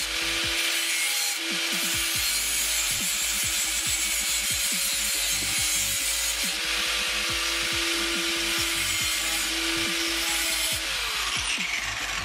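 Angle grinder cutting through a metal intake tube: a steady, loud grinding hiss over the whine of the motor, which is released and spins down near the end.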